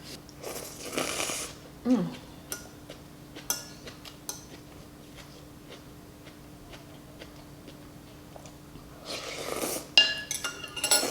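A spoon clinking against a soup bowl several times, each clink ringing briefly, with a burst of slurping noodle soup about half a second in and another near the end.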